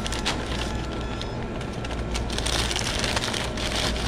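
Brown paper takeout bag crinkling and rustling as it is handled and pulled open, the crackling denser and louder from about two seconds in.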